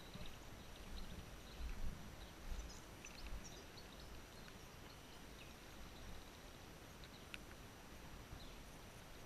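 Faint outdoor background noise with a low rumble, a few brief high chirps about three seconds in, and a single click near the end.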